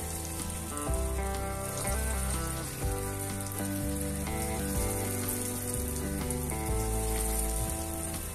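Rings of plantain and cornmeal dough sizzling in hot oil in a small frying pan, more pieces dropped in partway through. Background music with a bass line and melody plays over it.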